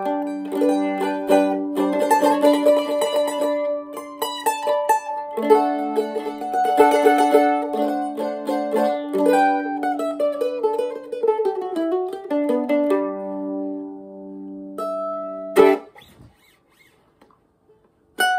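A Harmony-made 1930s Supertone mandolin with a solid birch top, back and sides, flatpicked: a tune of single-note runs and strummed chords. About 16 s in the playing cuts off after a sharp stroke, leaving a couple of seconds of near silence before it starts again near the end.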